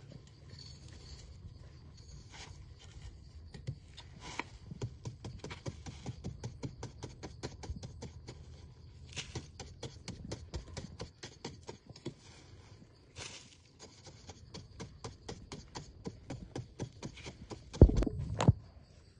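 A long run of quick light taps and scrapes, several a second, like handwork on wood or bamboo, ending in two loud knocks close together near the end.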